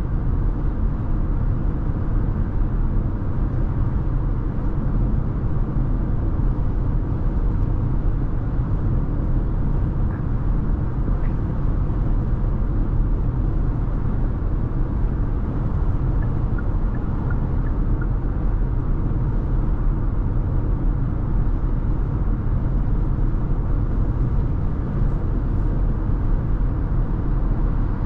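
2022 Hyundai Tucson SEL AWD driving at a steady speed: a constant rumble of tyre, road and engine noise with no changes in pace.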